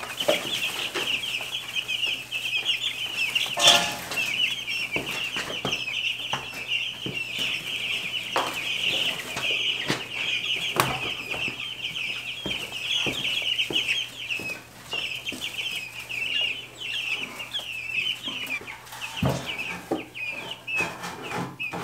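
A brooder full of young white Jumbo Cornish Cross meat chicks peeping continuously, a dense chorus of short high chirps. Scattered knocks, the loudest about four seconds in, come from the netting being fitted over the tub.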